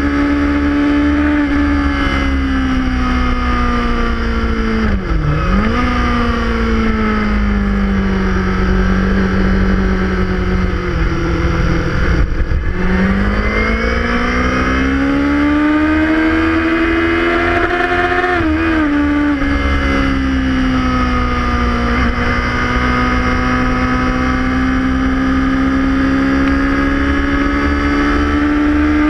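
Sport motorcycle engine at track speed, heard from its own onboard camera: the revs climb and fall through the gears, dipping sharply about five and twelve seconds in, with heavy wind rumble on the microphone.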